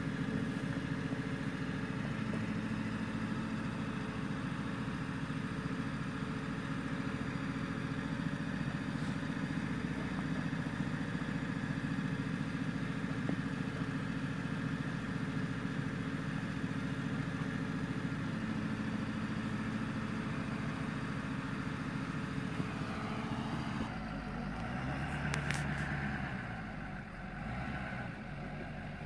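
A tow truck's engine running steadily. About 24 seconds in, the sound drops and changes, with one brief sharp high sound soon after.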